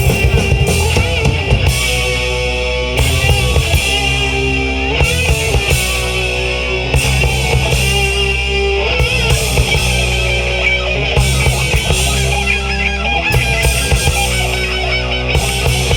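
Rock band playing live: electric guitars, bass guitar and drum kit in a heavy riff that repeats about every two seconds.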